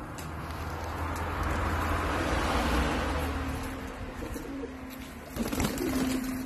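Dönek pigeons cooing and shuffling, with a swell of rushing noise in the first half and a short burst of wing-flapping about five and a half seconds in.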